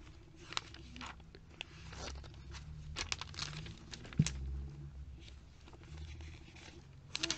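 Glossy catalogue pages being turned and handled by hand, rustling and crinkling with each flip, with a soft thump about four seconds in.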